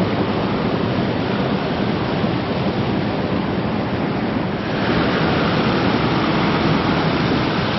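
Steady rush of falling water from a waterfall, an even hiss with no breaks, growing brighter a little past halfway.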